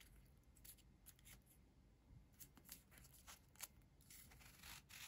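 Faint rustling, crinkling and small clicks of fingers picking at and tearing the seal wrapped around a whisky bottle's cap, with a slightly longer rustle near the end.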